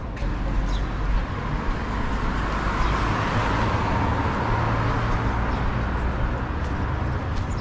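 A car passing along the street: its road noise swells to a peak about halfway through and then eases off, over a low rumble.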